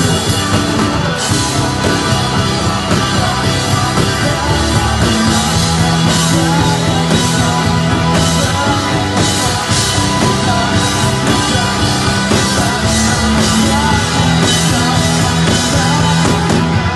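A band playing rock music live, loud and without a break.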